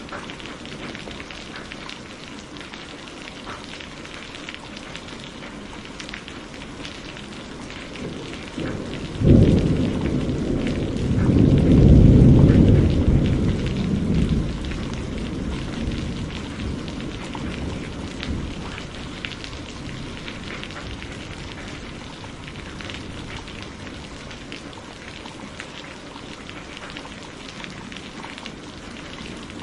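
Steady rain falling, with a sharp thunderclap about nine seconds in that rolls into a deep rumble, swells a few seconds later and dies away.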